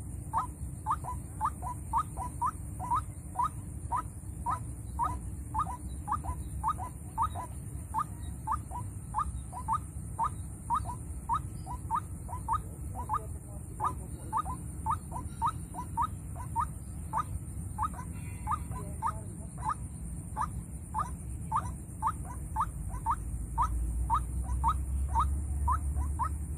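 Call of a white-breasted waterhen (ruak-ruak), one short note repeated steadily at about two a second. The call is used as a lure for trapping waterhens.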